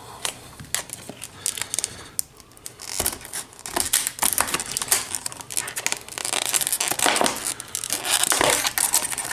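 Scissors cutting open a clear plastic blister pack: the stiff plastic crackles and snaps in irregular clicks, sparse at first and busier from about three and a half seconds in.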